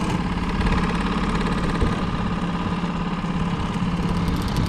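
Outboard motor running steadily at trolling speed, a constant even drone with one low note.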